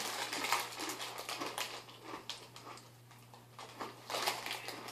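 Mouth-close crunching of Mini Takis rolled tortilla chips being chewed: quick, irregular crisp crackles, heaviest near the start and again about four seconds in.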